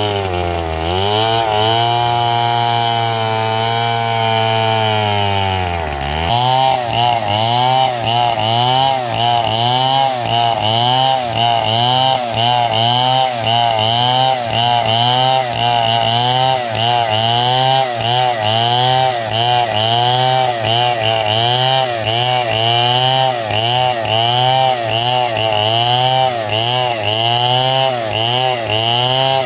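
Stihl two-stroke chainsaw running hard. Its pitch holds fairly steady for about six seconds, dips sharply, then rises and falls rhythmically a little more than once a second as the engine speed surges and sags.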